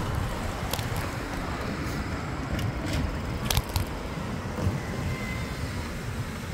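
Road traffic heard from a bicycle riding among cars: a steady, rumbling noise of passing cars. A few sharp clicks come through in the middle.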